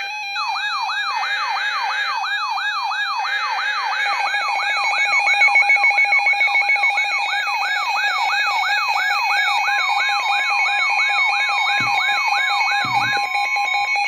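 Several NOAA weather alert radios sounding their alarms together for a special marine warning: a siren-like rising whoop repeating a little over twice a second, over steady tones and fast warbling beeps. The whoop stops near the end, with a couple of knocks.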